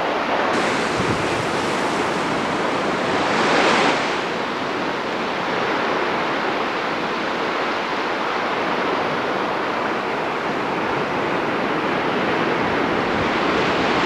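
Surf washing onto a beach with wind on the microphone: a steady rushing that swells briefly about four seconds in.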